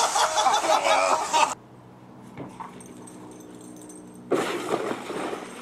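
Water splashing as a patio chair lands in a swimming pool, with people laughing, cutting off suddenly about a second and a half in. After a quiet stretch with a faint hum, a new burst of noise starts about four seconds in.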